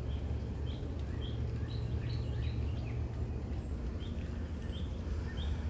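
A small bird chirping over and over, short calls about two a second, over a steady low rumble.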